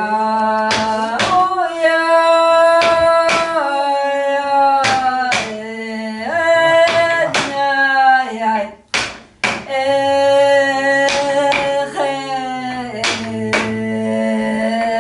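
Music: singing in long held notes that step from pitch to pitch, over sharp percussive hits like claps or taps.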